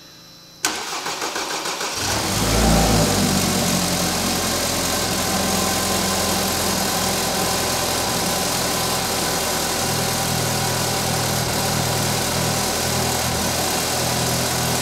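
BMW N20 2.0-litre turbocharged four-cylinder in an F30 328i cranking on the starter for about a second, catching with a brief rev flare, then settling into a steady idle. The engine is freshly rebuilt and running on break-in oil.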